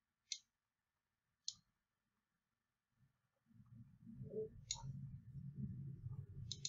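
Four sharp computer-mouse clicks, spaced a second or more apart, as a slideshow is clicked through. A faint low rumble sets in about halfway through.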